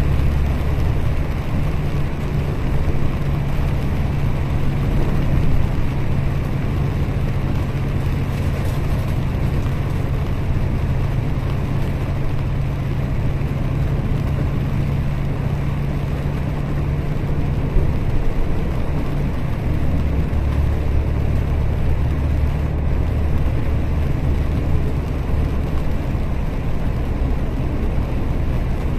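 A bus driving along a wet road, heard from inside: a steady low engine drone over tyre and road noise. The low hum changes pitch about two thirds of the way through.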